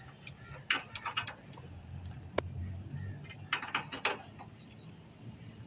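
Screwdriver working the screw of a newly fitted compressor terminal on a split AC outdoor unit: scattered metal clicks and scrapes, with a sharp click about two and a half seconds in. Under it runs a low steady hum, and birds call faintly.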